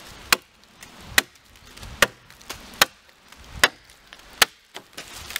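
Schrade SCAXE9 axe chopping into a small piece of dead wood: six sharp, evenly spaced strikes a little under a second apart, then a couple of lighter knocks near the end.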